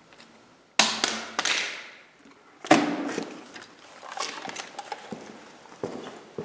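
A series of loud bangs, each dying away: three in quick succession about a second in and a fourth near three seconds, followed by lighter clattering knocks.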